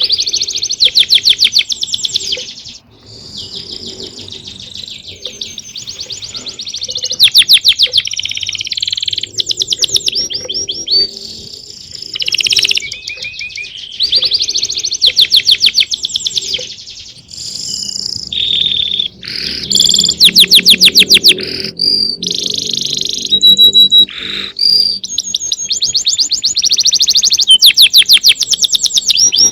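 Songbirds singing continuously: fast, high-pitched trills and runs of chirps, one phrase after another.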